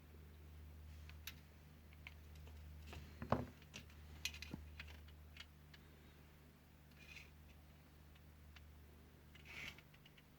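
Faint scattered clicks and light taps of small tools being handled over an LED lamp board, the loudest a sharp click about three seconds in, with a couple of short scrapes later, over a steady low hum.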